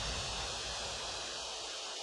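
Closing tail of an electronic dance remix: a hiss-like noise wash with the bass dying away and cutting out near the end.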